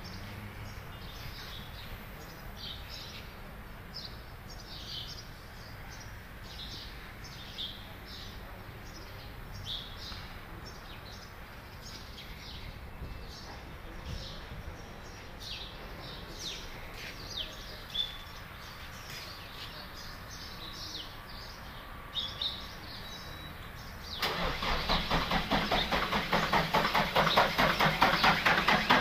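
Four-cylinder diesel engine of a JCB 535-125 telehandler running as a low steady hum under chirping birds. About 24 seconds in it suddenly becomes much louder, with a fast, even pulsing beat.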